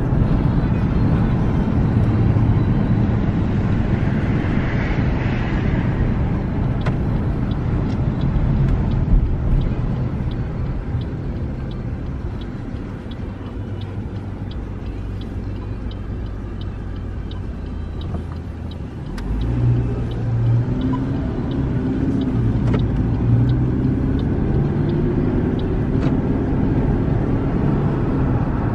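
Car engine and tyre noise heard from inside the cabin while driving. It eases to a quieter idle partway through, while the car waits at a traffic light. The engine then rises in pitch several times as the car pulls away and accelerates through the gears.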